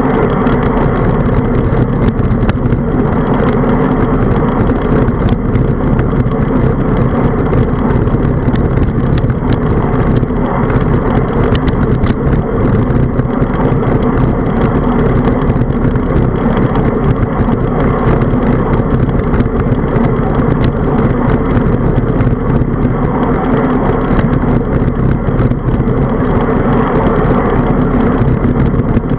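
Steady wind buffeting and road rumble on a bicycle's handlebar-mounted camera while riding along a paved road, with scattered light clicks.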